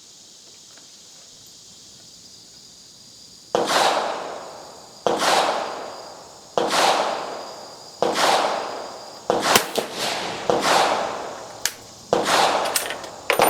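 Rifle shots fired in steady succession. The first comes about three and a half seconds in, then roughly one every second and a half, each with a long echoing tail. Faint crickets can be heard before the first shot.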